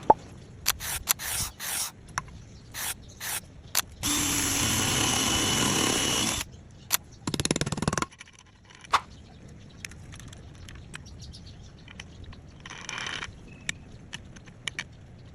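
Scattered knocks and scrapes of handling, then a power tool runs steadily for about two and a half seconds, starting about four seconds in, followed by a shorter scraping, cutting noise and quieter handling sounds.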